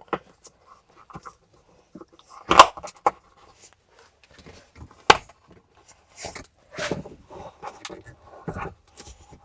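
Scattered clicks, knocks and rustling of hands and tools working at a side-by-side's battery hold-down bracket, with two sharper knocks, a little past two seconds in and about five seconds in.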